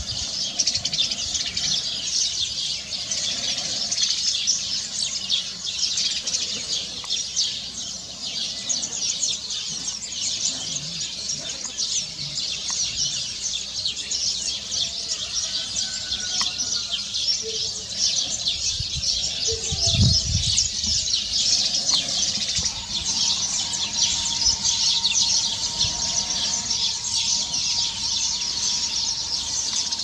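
Dense, steady high-pitched chirping of many small birds, with a few separate calls over it. There is a dull low thump about twenty seconds in.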